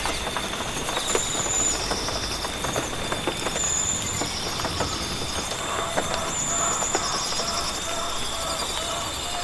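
Rainforest ambience: a steady high insect drone under short, repeated bursts of high trilling calls, with a run of lower repeated calls in the second half and scattered sharp ticks over a soft background hiss.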